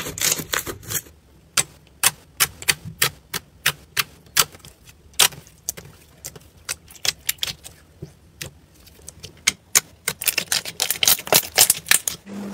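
Slime being stretched and pressed by hand, giving a run of sharp clicks and pops, a few a second, coming thicker for the last couple of seconds.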